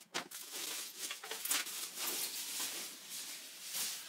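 Rustling and crinkling of a cloth helmet bag and thin plastic wrap as a helmet is pulled out and the wrapping is pushed aside, in irregular scratchy strokes.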